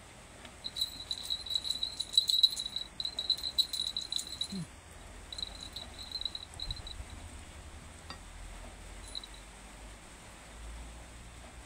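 An insect trilling: a high, steady chirp for about four seconds, then breaking into short bursts before stopping.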